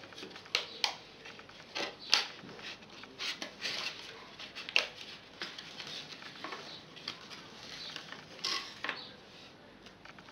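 Cardboard toy packaging being handled as small figures are pulled out of the box and its tray: scattered irregular taps, clicks and light scraping with soft rustling between.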